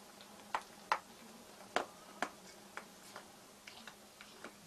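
Soft, wet mouth smacks and clicks close to a lamb, about a dozen at irregular intervals over quiet room tone.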